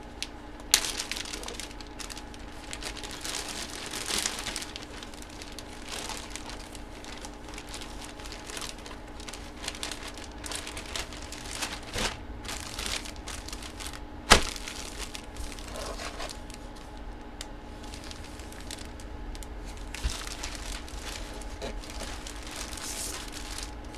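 Plastic packaging crinkling and rustling as it is handled and opened, with many small clicks and two sharper snaps, about a second in and about two-thirds of the way through.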